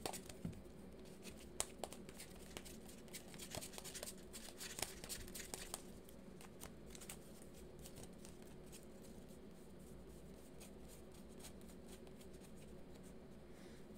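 A deck of tarot cards shuffled and handled by hand: a run of light, quick card flicks and clicks over the first six seconds or so, then only scattered soft card sounds. A faint steady hum lies underneath.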